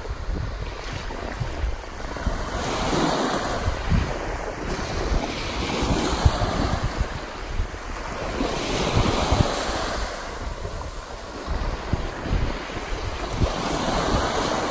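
Small surf breaking and washing up a sandy beach, swelling and easing every three seconds or so, with wind buffeting the microphone.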